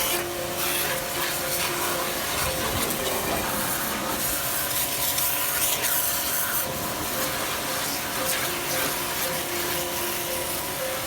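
Electric pressure washer running and spraying a high-pressure water jet: a steady hiss of spray over a constant motor hum.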